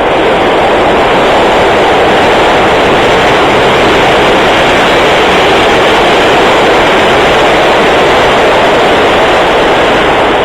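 New York City subway train running at speed: a loud, steady noise with no breaks.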